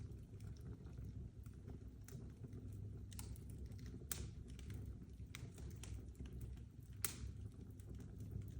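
Fire crackling, with scattered sharp pops over the low steady roar of the flames; the sharpest pop comes about seven seconds in.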